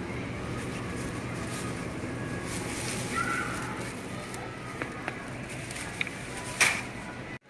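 Thin plastic produce bag rustling as zucchini are handled and bagged, over a steady low hum. A few small clicks, then a sharp knock about six and a half seconds in as the bagged zucchini land in a wire shopping cart.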